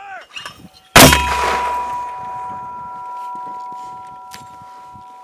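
A 60 mm mortar fires a single round about a second in: a sharp blast with a short low rumble, followed by a metallic ringing that slowly fades.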